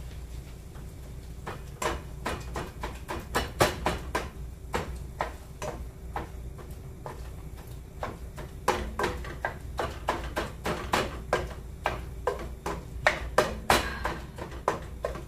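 A masher pressing meat down in a pot, knocking against the meat and pot in a run of sharp knocks, a few a second. The knocks stop for about four seconds midway, then resume.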